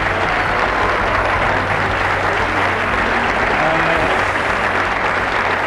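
Steady din of a crowd in a large sports hall, clapping and chatter blended into one continuous wash, with a few voices standing out faintly.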